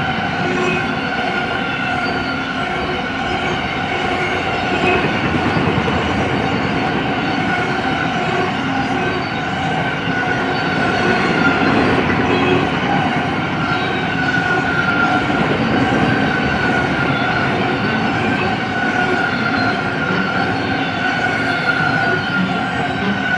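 Intermodal freight cars loaded with double-stack containers and trailers rolling past: a steady rumble of steel wheels on rail, with a high, steady whine held over it.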